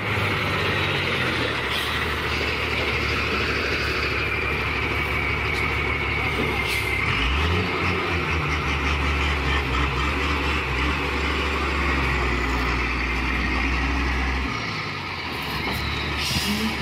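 Diesel engine of a log-laden Fargo AS 950 truck running as it drives on a dirt road, a steady drone that deepens and grows stronger about seven seconds in and eases off a couple of seconds before the end.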